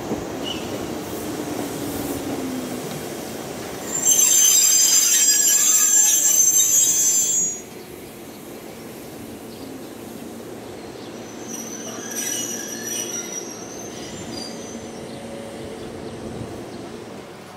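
Izuhakone Railway Sunzu Line electric train slowing into the station, a low rumble falling in pitch as it slows. About four seconds in a loud, high-pitched metallic squeal from the wheels sets in as it brakes to a stop, lasts about three and a half seconds and cuts off sharply. A fainter squeal comes around twelve seconds in.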